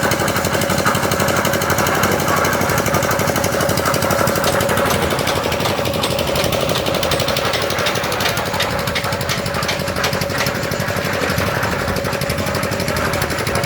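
Concrete mixer machine's engine running steadily: a fast, even knocking with a steady hum over it.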